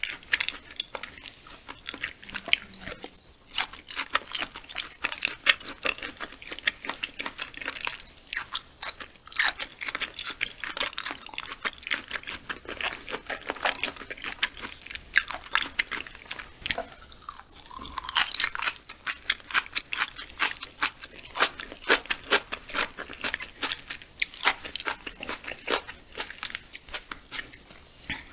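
Close-miked chewing of raw yellowtail sashimi: a continuous run of quick wet clicks and smacks from the mouth, busiest and loudest about two-thirds of the way through.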